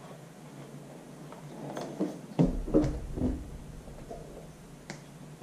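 Soft handling noise from a motorcycle helmet being fastened and adjusted: a few light knocks and rubbing sounds with brief low rumbles about halfway through.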